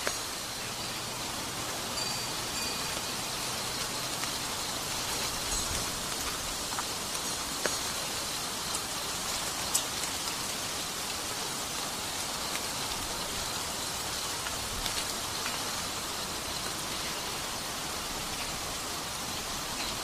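Steady rainfall hiss with faint scattered ticks of drops, and a brief high chirp about two seconds in.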